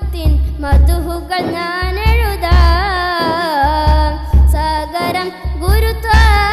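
A boy singing a Malayalam madh song, an Islamic devotional song, in a wavering, ornamented melody over a deep, regular bass beat.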